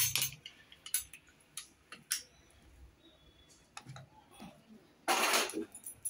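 Aluminium pressure cooker being handled as its lid is closed and locked: a few scattered small metallic clicks. About five seconds in, a louder half-second scrape as the cooker is set onto the gas stove.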